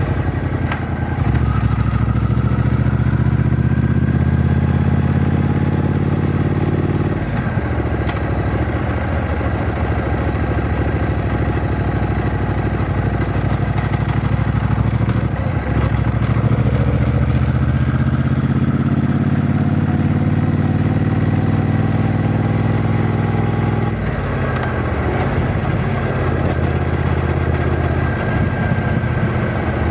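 Triumph Bonneville T120's 1200 cc parallel-twin engine under way, its note climbing in long pulls and dropping back at gear changes, three times.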